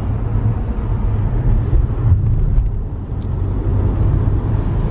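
Road noise inside the cabin of a car driving at speed: a steady low rumble of tyres and engine.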